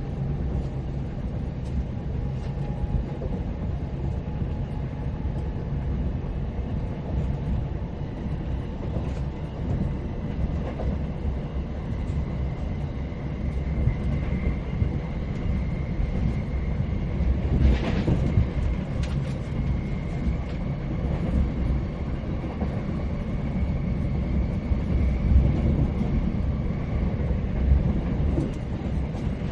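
Passenger train running, heard from inside the carriage: a steady low rumble of wheels on the track. A faint steady whine comes in about halfway through, and there is a brief knock a few seconds later.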